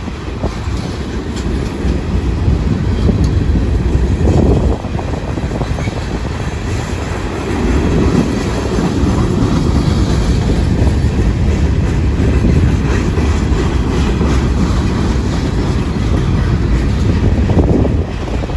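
Freight cars of a manifest train rolling past: a steady, loud, heavy rumble with wheels clacking over the rail joints.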